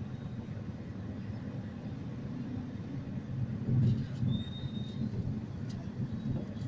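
Low rumble of idling engines and slow street traffic heard from inside a car, with a louder swell about four seconds in followed by a brief high squeal.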